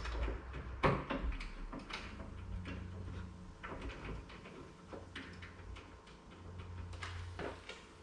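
Scattered light clicks and knocks of a smart deadbolt's metal parts being handled and fitted to a door while its mounting screws are turned by hand. The sharpest knock comes about a second in.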